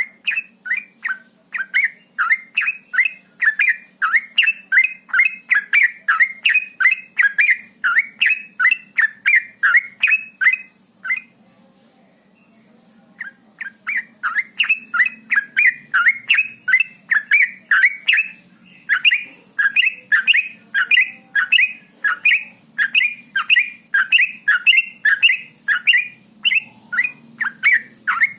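Yellow-vented bulbul (trucuk) singing a fast 'ropel' run of short repeated chirping notes, about three a second. The run breaks off for a couple of seconds near the middle, then resumes. A faint low hum lies under it.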